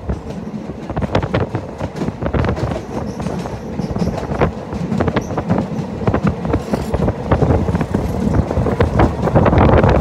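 A passenger train running, its wheels clacking over the rail joints above a steady rumble that grows louder near the end.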